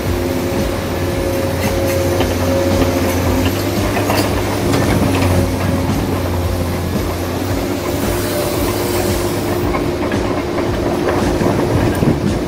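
Small electric motors and gearboxes of a radio-controlled crane whirring steadily, a held hum with a light mechanical clatter.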